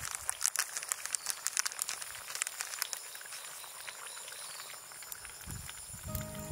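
Campfire crackling and popping, with the pops densest in the first few seconds and thinning out afterwards. Background music comes in near the end.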